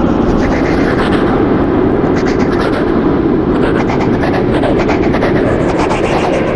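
Creepy echo horror sound effect: a dense, steady rumbling din with faint crackles high above it.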